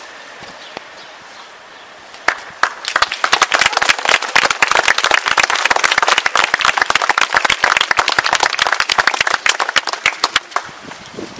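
Crowd applauding: a quiet start, then dense clapping breaks out about two seconds in, holds for several seconds and dies away near the end.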